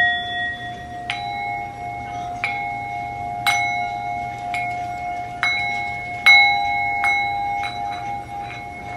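Singing bowls struck with a small mallet, about eight strikes roughly a second apart, each leaving a steady ringing tone that runs on under the next. Two close pitches ring together and waver near the end.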